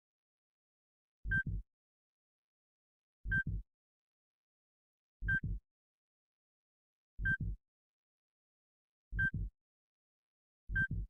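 Heartbeat sound effect: a slow double thump (lub-dub) about every two seconds, six beats, each with a short high beep on it like a heart monitor.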